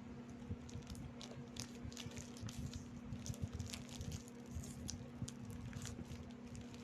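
Close-up crunching of crispy Rebisco crackers being bitten and chewed: irregular sharp crackles, several a second, over a steady low hum.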